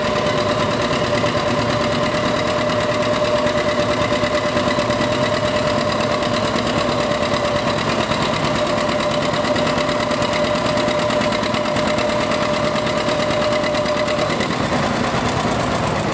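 John Deere two-cylinder tractor engine running steadily under load as it pulls a weighted sled. A steady whine rides over it and stops about two seconds before the end.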